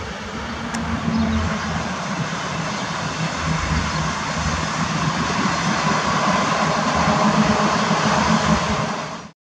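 Electric passenger train passing on the rails with a steady rumble and hiss that grows slowly louder, then cuts off suddenly near the end.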